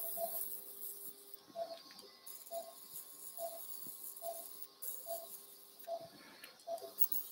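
Surgical patient monitor beeping in time with the anaesthetised dog's pulse: short beeps, all at the same pitch, evenly spaced a little faster than one a second (about 70 a minute). A steady low hum runs underneath and breaks off briefly twice.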